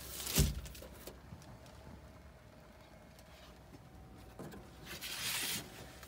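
A cabinet door in a travel trailer's overhead storage thumps once about half a second in, followed near the end by a brief scuffing rustle.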